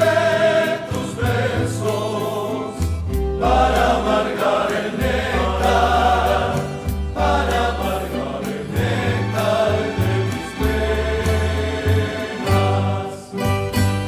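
Recorded bolero played by a Colombian rondalla, with a group of voices singing together over plucked strings and a steady bass.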